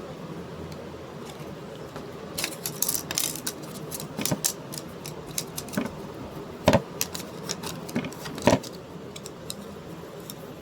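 Irregular clicks and rattles of small hard objects being handled, starting about two seconds in, with two louder knocks in the second half.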